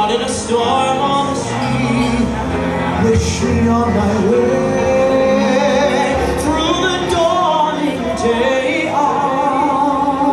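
A man singing a slow ballad into a microphone over musical accompaniment, drawing out long held notes; a higher held note begins about nine seconds in.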